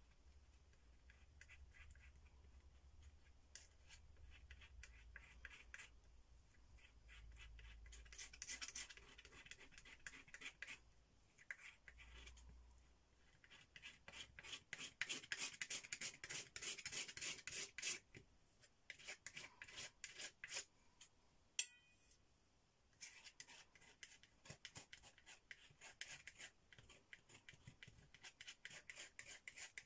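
Metal palette knife dragging and scraping acrylic paint across the painting surface: faint, scratchy rasping in spells of quick repeated strokes. There is one sharp click about two-thirds of the way through.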